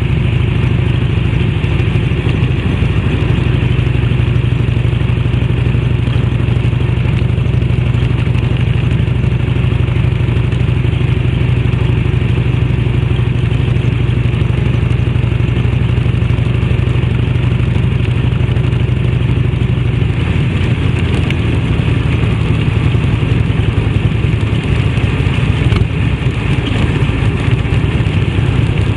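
A 1991 Harley-Davidson Electra Glide sidecar rig's 1340 cc Evolution V-twin running at a steady cruise through an aftermarket fish-tail silencer. Its note shifts lower about two-thirds of the way through.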